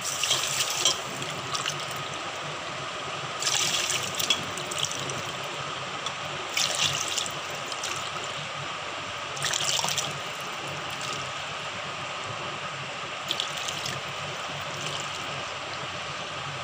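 Water poured from a jug into a plastic measuring cup and tipped into a steel pan of sugar, cup after cup: about five short splashy pours a few seconds apart, over a steady faint background hum.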